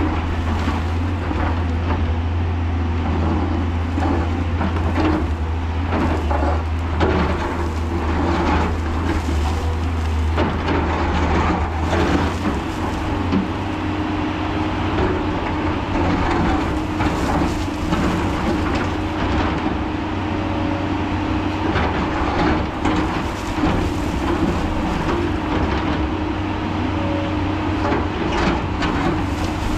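JCB crawler excavator's diesel engine running steadily under load while digging. Repeated scrapes and knocks come through as the bucket cuts into the earth-and-rock wall, and a steady hum comes in about a third of the way through.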